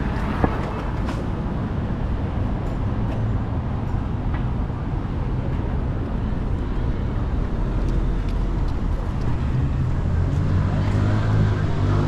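City street traffic: steady rumble of passing cars, with a sharp click about half a second in. A vehicle engine hum grows louder near the end.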